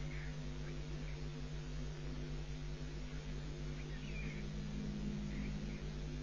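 Steady electrical hum and buzz from a nest webcam's audio feed, with a few faint, short high chirps now and then, the clearest about four seconds in.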